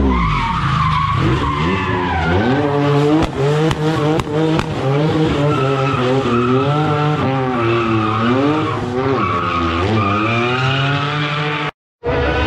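Drift car's engine revving up and down over and over as it slides, with tyres squealing and a few sharp cracks about three to four seconds in. The sound cuts out briefly near the end.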